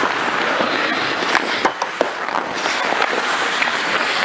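Ice hockey play: a steady scraping hiss of skate blades on the ice, with a few sharp clacks of sticks and puck, the clearest about one and a half and two seconds in.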